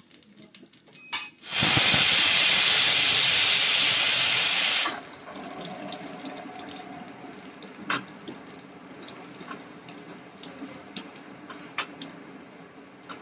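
Tadka ingredients spooned into hot oil in a small tempering pan: a loud sizzle starts about a second and a half in, holds for about three seconds and drops off suddenly. A quieter sizzle follows, with a few spoon clicks against the pan as it is stirred.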